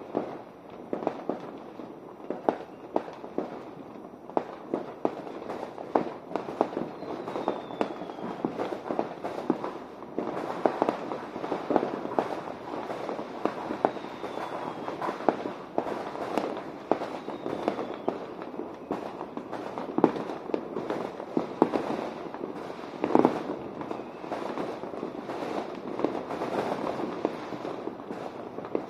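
Fireworks and firecrackers going off non-stop in every direction: a dense, unbroken string of sharp bangs and crackles that sound like gunshots, with a few faint falling whistles among them.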